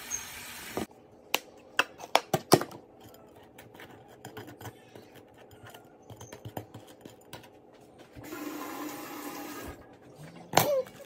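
Chicken frying in a wok for a moment, then a table knife clicking and scraping on a split baguette as a spread is smeared on: a quick run of sharp clicks, then lighter scattered scrapes.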